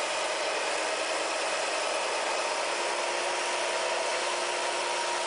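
Schumann resonance generator box running, a steady mechanical whirr: an even hiss with a few faint steady tones, unchanging throughout.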